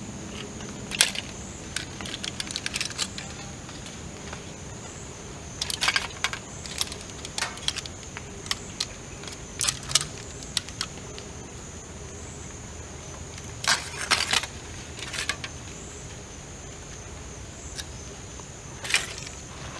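Chopsticks clicking and tapping against a blue enamel camp plate as side dishes are placed beside the rice, in short scattered taps, some in quick clusters. A steady high-pitched drone runs beneath.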